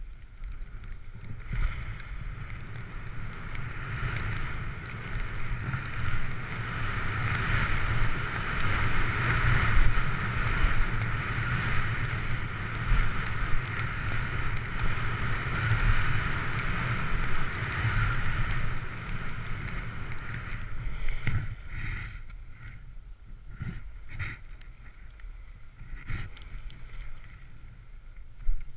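Skis sliding and scraping over packed snow on a fast downhill run, a steady hiss with wind rumbling on the microphone. About two-thirds of the way through the steady slide quiets and breaks into a series of short scrapes.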